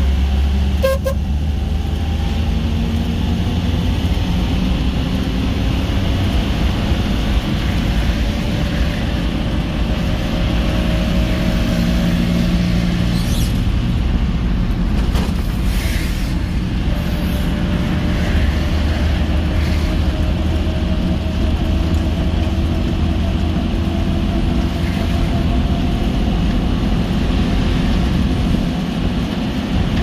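Car driving, heard from inside the cabin: a steady low rumble of engine and tyres on the road, with short horn toots from traffic about a second in and again around the middle.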